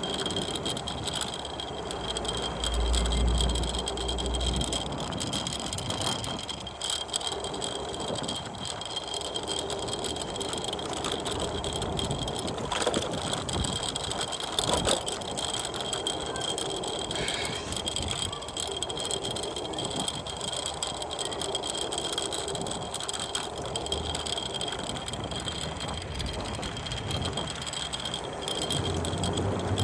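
Scooter rolling over paving: a steady rattle from the wheels and deck, with a thin high whine throughout and a few low thumps.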